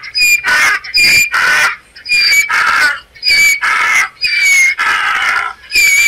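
Donkey braying: a long run of loud hee-haws, a high squealing note on the in-breath alternating with a harsher, rougher note on the out-breath, about once a second.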